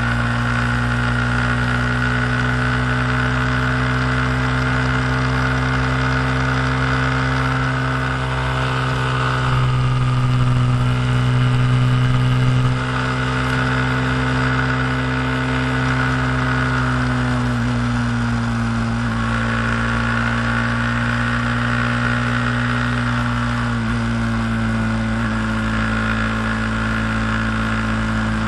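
Honda Grom's 125 cc single-cylinder engine running at a steady cruise, with wind rush over the microphone. The engine gets louder for a few seconds around the middle, then drops back suddenly.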